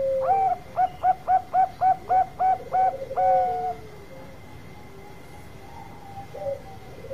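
Zebra dove (perkutut, Bangkok type) singing its cooing song: a quick run of about ten short, rising staccato coos, roughly four a second, closing on a longer note. A lower, rolling coo sounds beneath the end of the run, and after a pause a new rolling coo starts near the end.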